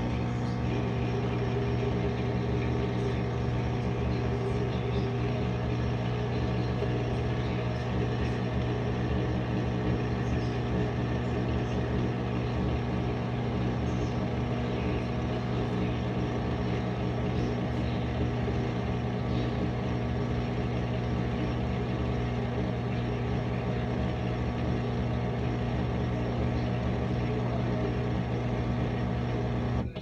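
GE dishwasher running mid-cycle: a steady low motor hum over a hiss, stopping abruptly at the very end.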